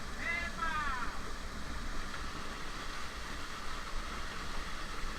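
Steady rushing of a waterfall. A brief call that falls steeply in pitch is heard in the first second.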